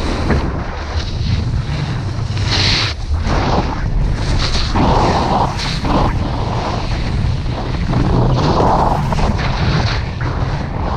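Wind buffeting the microphone as a snowboard slides down packed snow, with louder hissing scrapes of the board's edge on the snow at the turns, around two and a half, five and nine seconds in.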